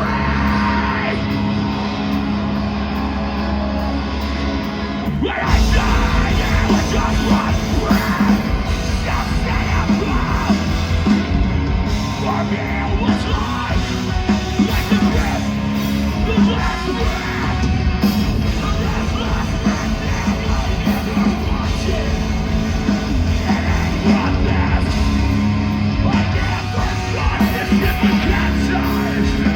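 A metalcore band playing live, with heavy distorted guitars, drums and screamed vocals. The song starts with a held, thinner section, and the full band comes in about five seconds in.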